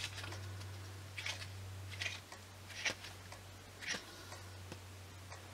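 Sheets of printed card being turned over one after another in a paper pad: four soft papery swishes about a second apart, over a low steady hum.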